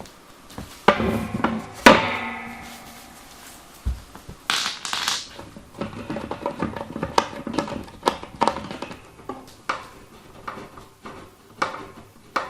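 Metal parts and tools being handled and knocked together: two sharp metallic clanks about one and two seconds in, the second ringing out for a second or so, then a run of small clicks and knocks.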